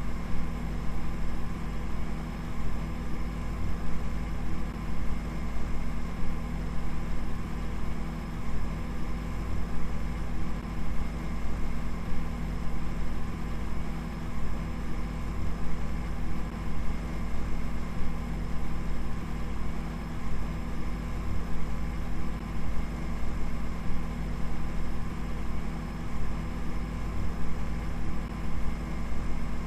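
Steady synthetic drone, likely generated from binary data: many held tones stacked over a heavy low rumble, with a quick, irregular flutter in loudness and no change in pitch.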